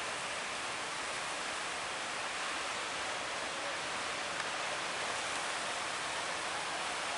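Steady, unbroken rush of sea water and wind around a boat out on rough sea, with no distinct engine note or knocks standing out.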